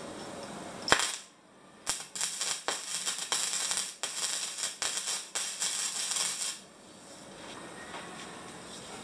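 Electric arc welding on a tube frame: the arc crackles and sputters in uneven bursts, starting about two seconds in and breaking off after about six seconds.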